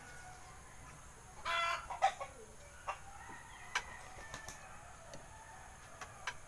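Metal spoon clinking and scraping against a glass soup bowl, a string of sharp single clinks several times over. A chicken clucks once, briefly, about a second and a half in.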